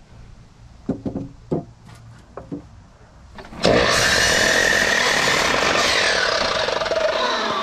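A few wooden knocks as boards are set down, then about three and a half seconds in an electric miter saw starts and cuts through a rough-sawn board, its whine dropping in pitch near the end as the blade spins down.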